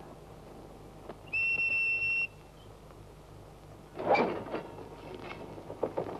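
A single steady, high whistle blast lasting about a second. About four seconds in, freight wagons rolling over the track start a burst of metallic clanking and rattling.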